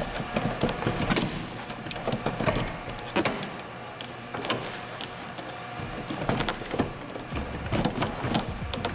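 Volvo 240 door card being wiggled and shimmied by hand, with irregular clicks, knocks and rattles of the trim against the door.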